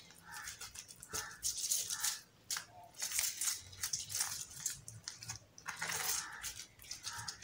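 Metal spoon scraping and tapping over a roti on a steel plate as butter is spread across it, in a run of short, irregular scrapes.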